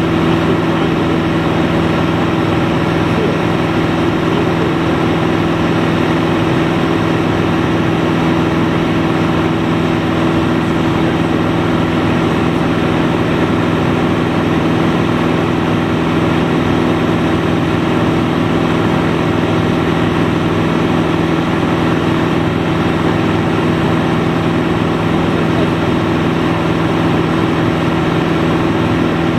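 Single-engine propeller plane's engine and propeller droning steadily in flight, heard from inside the cockpit, the engine speed holding constant throughout.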